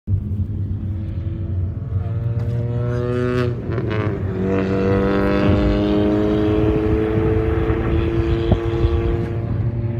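Mini Cooper engine running with a steady pitched drone. The drone breaks off and shifts about three and a half seconds in, then creeps slowly higher in pitch.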